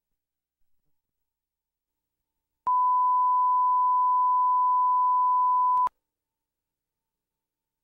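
A single steady 1 kHz electronic beep tone, about three seconds long, starting and stopping abruptly. It is typical of the reference tone laid at the head of a film's sound track.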